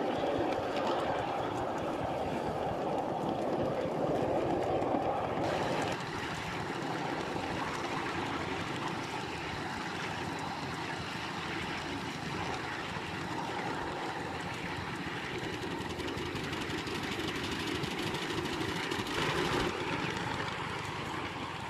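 5-inch gauge Bagnall-style live steam locomotive running, with steam blowing past the cylinders and up the chimney as a steady rushing noise. This is blow-by, which the owner suspects comes from a scored port face and worn D-valve letting steam bypass straight into the exhaust port.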